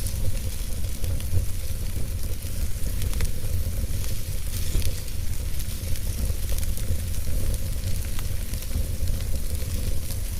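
Wood fire burning in a fireplace: a steady hiss over a low rumble, with scattered small crackles and pops.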